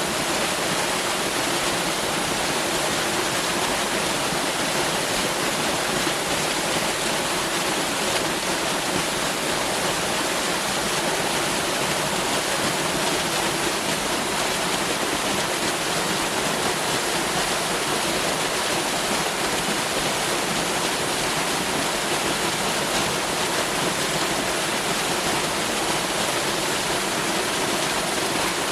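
Waterfall rushing: a steady, dense roar of falling water.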